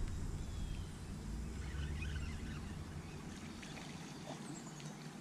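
Bow-mounted electric trolling motor humming steadily, cutting out about three and a half seconds in, over faint water lapping at the hull.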